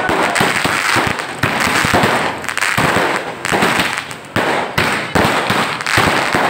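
Aerial fireworks going off in quick succession: rapid bangs of bursting shells over a dense crackle. There is a brief lull about four seconds in, then another loud burst.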